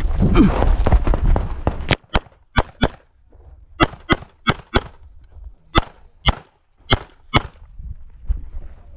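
CZ 75 SP-01 pistol firing about a dozen shots in quick pairs, two to a target, with short gaps between pairs. The shots follow a loud low rumble of noise in the first two seconds.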